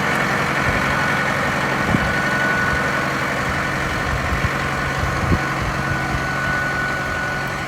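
Tractor engine running steadily, easing slightly in loudness toward the end, with a thin steady whine above it and a couple of faint knocks.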